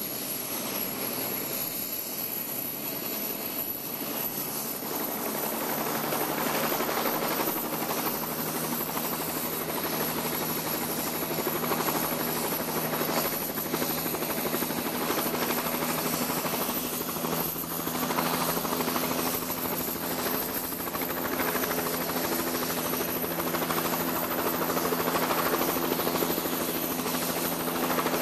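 Helicopter sitting on the ground with its engine and rotor running, a steady drone of mechanical noise that gets a little louder about five seconds in.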